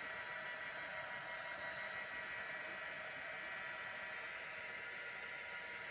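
Handheld craft dryer running steadily, blowing on wet chalk paste on a wooden rolling pin to dry it: an even airy hiss with a faint high whine.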